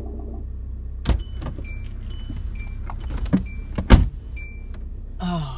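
Inside a car with a steady low hum of it running, a warning chime beeps repeatedly. A few sharp clicks and knocks come through, the loudest about four seconds in. A short falling whine sounds near the end.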